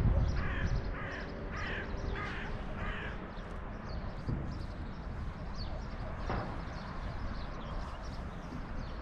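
A bird giving a series of about five harsh, crow-like caws over the first three seconds, over a steady low rumble.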